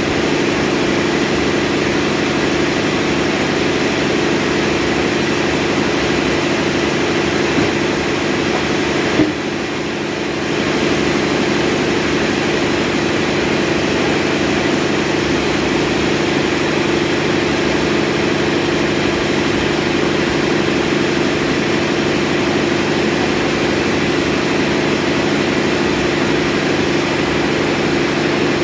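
A motor running steadily with a constant hum, dropping slightly in level for about a second a third of the way in.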